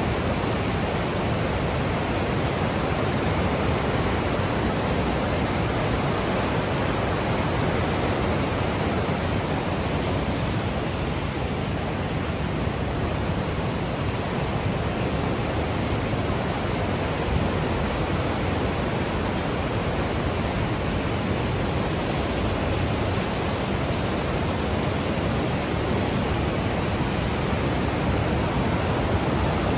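Class 6 whitewater rapids of the Niagara River rushing: a dense, steady noise of churning water with no let-up.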